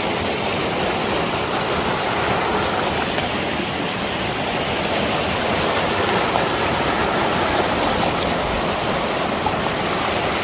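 Mountain stream rushing over rocks: a steady, loud rush of water that does not change.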